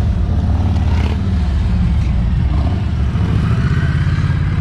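Motorcycle engine running at low speed, a steady low rumble.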